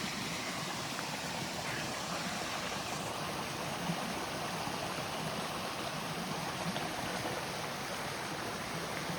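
Rain-swollen creek rushing steadily over rocks and small falls after heavy rain.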